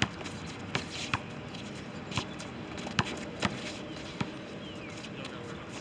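A basketball dribbled on an outdoor asphalt court: single sharp bounces at uneven intervals, about six in all, with scuffing sneaker steps.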